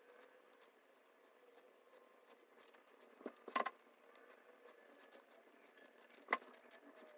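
Faint dabbing and scratching of a paintbrush on canvas, with a short cluster of sharp taps about three and a half seconds in and a single sharp tap about six seconds in.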